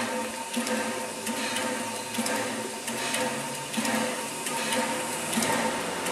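Narrow-gauge steam locomotive standing with steam up: steam hissing around it, with a rhythmic pulse about every 0.7 s from its air pump working, over a steady hum.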